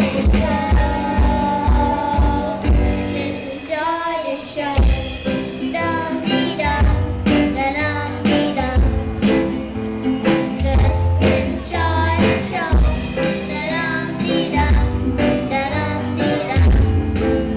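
Young girls singing into microphones over a live band, with a steady drum beat and electric guitars, amplified through a PA system.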